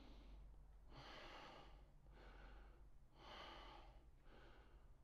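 Faint, slow breathing of a man holding a yoga lunge, several breaths in and out, each lasting under a second.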